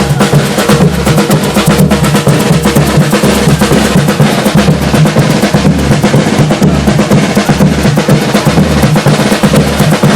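Drum orchestra playing loudly together: a dense, driving rhythm of many drums, with rapid snare-like strokes over deep bass drum beats.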